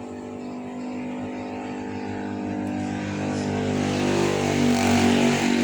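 An engine running steadily and growing louder over the few seconds.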